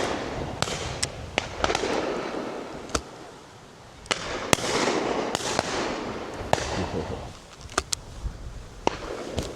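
Shotgun shots from a line of guns at driven pheasants and partridges: about a dozen scattered reports, some close and loud, others distant and faint, each trailed by an echo.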